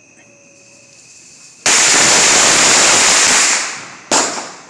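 A consumer firework going off: a loud hiss starts suddenly about a second and a half in and lasts nearly two seconds before fading, then a single sharp bang near the end.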